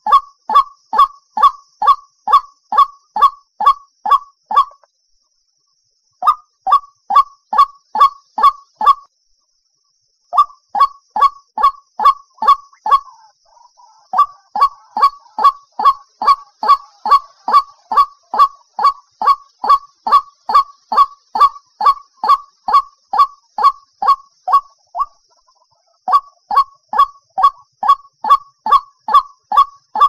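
White-breasted waterhen calling: a long run of short, falling notes, about two a second, with a few brief pauses.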